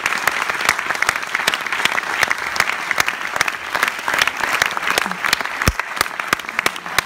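Audience applauding steadily, a dense clatter of many hands clapping, with one low thump about five and a half seconds in.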